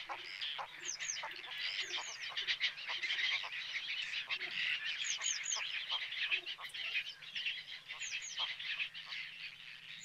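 Dense chorus of a mixed flock of wetland birds calling: many short, harsh croaking calls, with high whistled calls that rise and fall, often in quick pairs.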